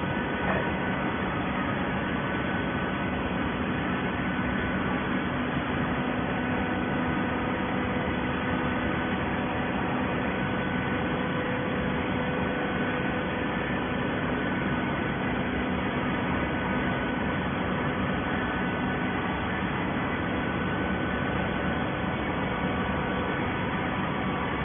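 Waste paper baler running: a steady machine hum over an even noise.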